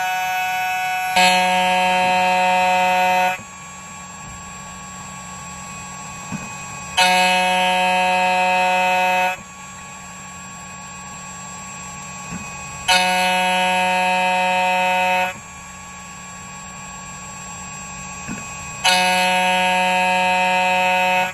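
2m2tank CNC key cutting machine milling a key blank in repeated passes: a loud, steady, whining cut of about two seconds comes four times, about every six seconds, each starting sharply, with the machine humming more quietly between passes.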